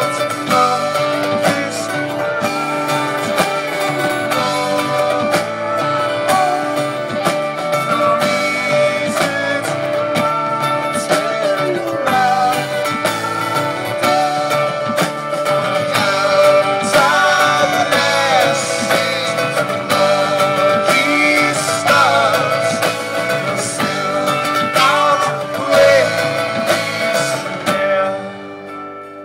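Live pop-rock band with brass, guitars, keyboard and drums playing a passage of the song without lyrics; the music drops away near the end.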